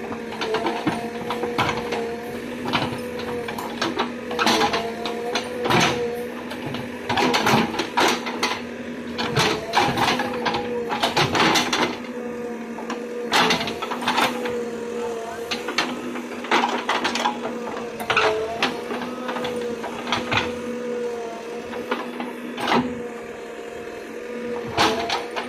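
JCB 3DX backhoe loader digging with its backhoe arm: the diesel engine runs steadily, its note dipping briefly every couple of seconds as the hydraulics take load, under repeated sharp clanks and knocks from the bucket and arm linkage working in the soil.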